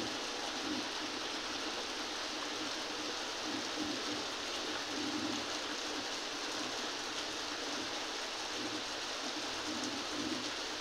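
Heavy rain falling steadily on a flat rooftop and the buildings around, a dense even hiss. A bird's low calls repeat underneath every second or so.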